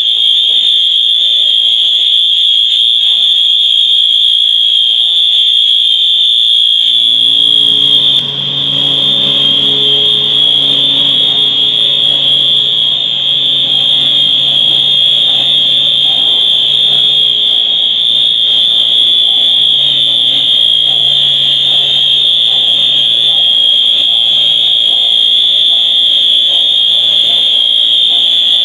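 Wheelock AS horn-strobe fire alarms sounding one very loud, continuous, high-pitched electronic horn tone, set off by a false alarm. A lower hum joins about seven seconds in.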